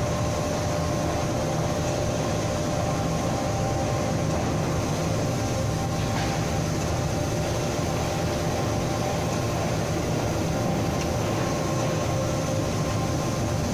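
Steady machinery hum of a double-arm forging machine and the forge shop around it, running continuously with a few steady tones and no press strikes.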